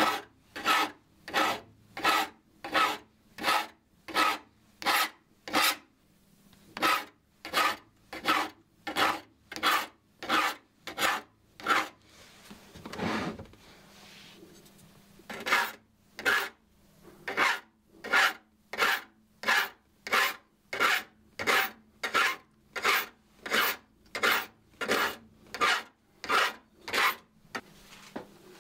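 Hand file rasping across the teeth of a Japanese ryoba pull saw as it is resharpened, in short even strokes about two a second. The strokes stop for a few seconds around the middle, with a soft rustle, then resume.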